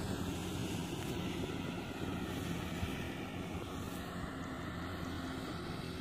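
Kubota DC-70G Plus combine harvester's diesel engine running steadily while harvesting rice, a continuous low drone with no sudden changes.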